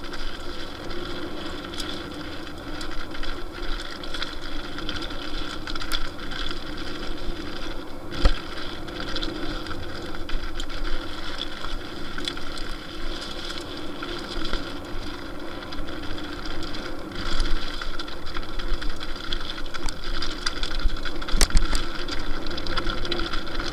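Lapierre Zesty TR 4.9 mountain bike running fast down a rough gravel and dirt trail: steady tyre roar and rattling of the bike over stones, with sharp knocks from hits, one about 8 seconds in and the loudest about 21 seconds in.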